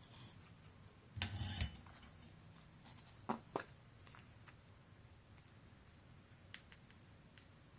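Small handling noises from tools and materials on a work table: a brief clatter about a second in, then two sharp clicks close together, and a few faint ticks after that.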